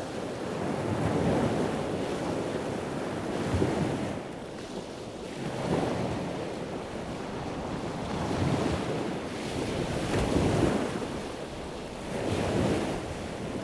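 Ocean waves washing in, the noise swelling and ebbing in repeated surges about every two seconds.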